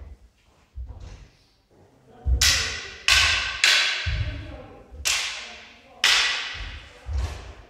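A bokken and a longsword clashing in sparring: about seven sharp clacks at an uneven pace, each with a ringing tail. Between and under them come dull low thuds of footwork on the wooden floor.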